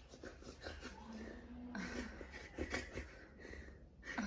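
Soft, wheezy breathing and small voice sounds close to the microphone.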